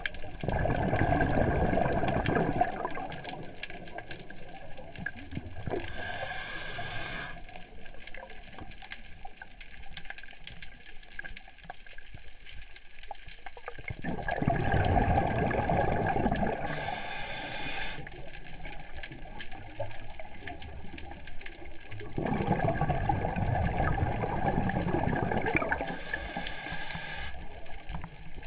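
Scuba diver breathing underwater through a regulator: three long rushes of exhaled bubbles about ten seconds apart, with quieter hissing between them.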